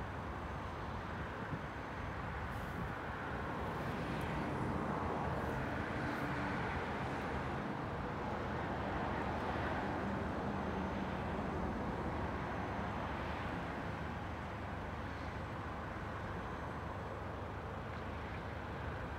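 Outdoor road traffic: a steady rush of passing vehicles that swells a little through the middle and eases off again.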